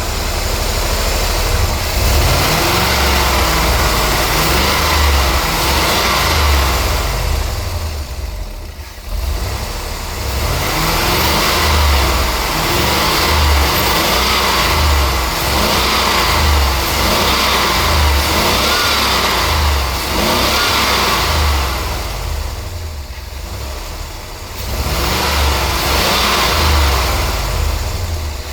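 Car engine running and being revved while misfiring from a failing ignition coil whose spark is tracking across the coil case. The low pulsing is uneven, and the sound drops off briefly twice.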